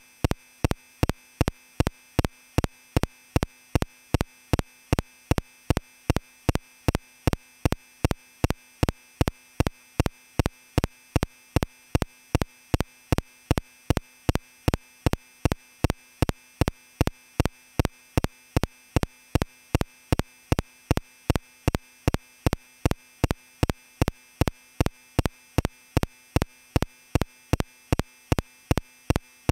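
A short electronic click-beep repeating at an even pace, about three times a second, without a break.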